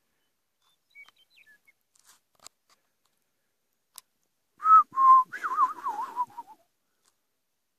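A person whistling close by: two short notes, then a wavering phrase that falls in pitch, lasting about two seconds and starting a little past the middle. A few faint clicks come before it.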